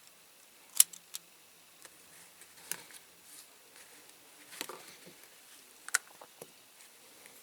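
Light, sharp clicks and taps from the small parts of a die-cast toy car being handled and pushed into place, about five distinct ones spread irregularly, with softer rustling between.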